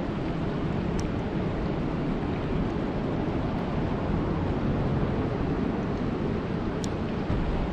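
Flowing river water rushing steadily, with a couple of brief faint high ticks, about a second in and near the end.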